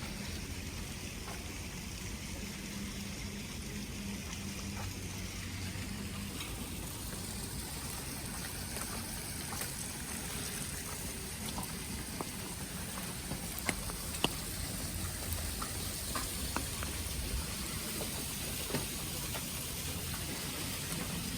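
Steady wet hiss of falling wet snow and meltwater, with scattered light dripping ticks and two sharper ticks about two-thirds of the way through.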